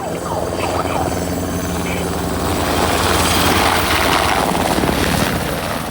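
Firefighting aircraft flying low overhead, its engine sound building to a peak about three to four seconds in and then fading as it passes.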